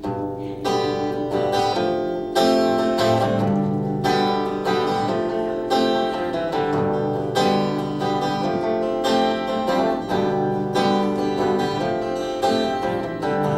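Acoustic guitar strumming chords, with a low bass line under them, in a country-folk song's instrumental introduction. The chords are struck in a steady rhythm.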